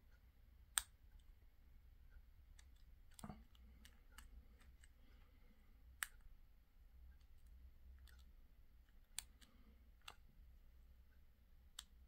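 Faint, scattered clicks of a pick working the security pins of a Master Lock Pro Series 6321 padlock under tension during picking, a few sharper than the rest. The clicks are the feedback of pins moving and setting in the lock.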